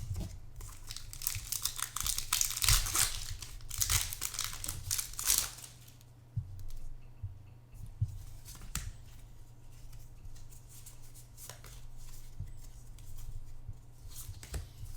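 Foil wrapper of a Pokémon TCG booster pack being torn open and crinkled for a few seconds, followed by quieter intermittent clicks and rustles of the cards being handled.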